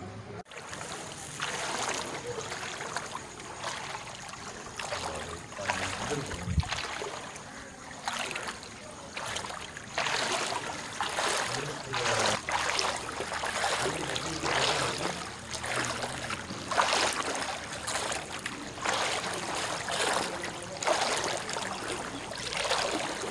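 Floodwater sloshing and splashing in repeated surges, about one every second or so.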